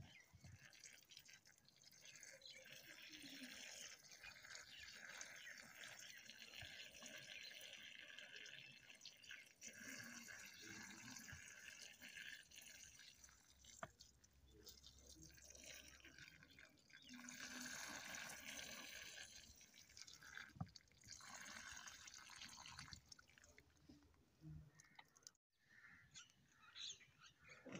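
Faint trickling and dripping of water poured from a plastic bottle onto dry soil, pooling and soaking in.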